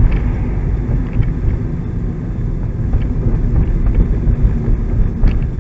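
Steady low rumble of tyre, road and engine noise heard inside the cabin of a car driving along a road, with a couple of faint clicks about five seconds in.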